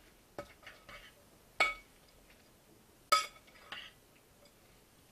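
A utensil clinking against a glass mixing bowl while chicken salad is stirred: four sharp clinks with a short ring, the loudest two in the middle.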